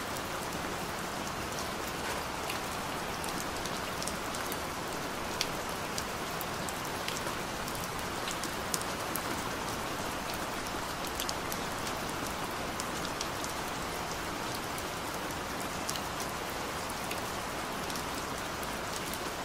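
Steady rain falling, an even wash of noise with scattered sharp drop taps throughout.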